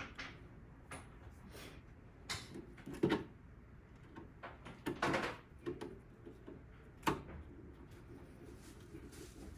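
Scattered small clicks, taps and scrapes of a screwdriver putting back the two screws that hold a 10 GbE network card in a Synology NAS. The sharpest knocks come about three, five and seven seconds in.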